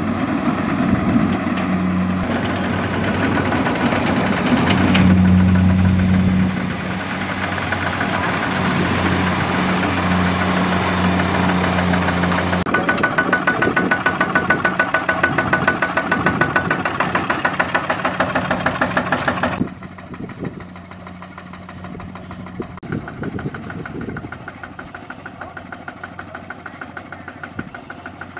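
Single-cylinder diesel engine of a Kubota two-wheel walk-behind tractor running hard with a rapid knocking beat as it works in deep mud; about two-thirds of the way through the sound drops noticeably quieter.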